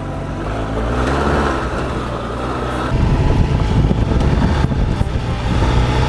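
BMW R1200GS boxer-twin motorcycle engine running under way on a gravel road, its pitch rising a little about a second in; it becomes louder and rougher from about halfway through.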